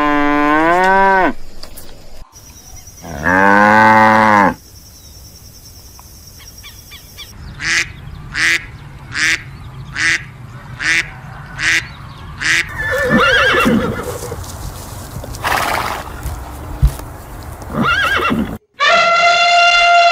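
A cow mooing twice in long, drawn-out moos, then ducks quacking in a regular run of about nine quacks with more calls after. Near the end, after a brief silence, an elephant trumpets loudly, the call falling in pitch.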